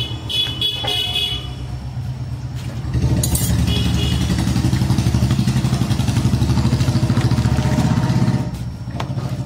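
An engine running nearby with a low, fast-pulsing rumble that grows louder about three seconds in and drops back near the end.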